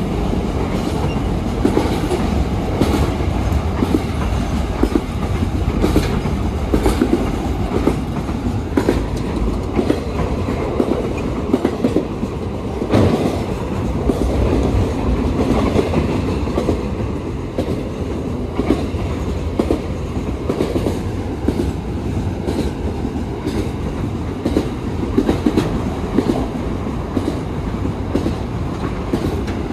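A train rolling past on the track, its wheels clattering steadily over the rail joints.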